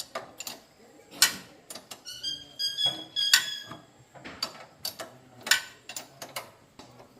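Metal tools and parts clicking and clinking against each other, irregularly. A few knocks ring briefly with a metallic tone about two to three seconds in.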